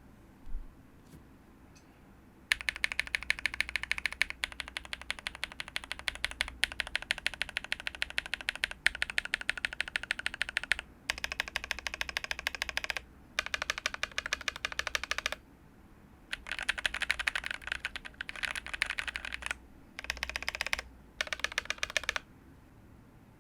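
Fast typing on a KBD67 V3 mechanical keyboard fitted with tactile switches, an FR4 plate and GMK keycaps. The typing comes in runs of several seconds, with short pauses between them.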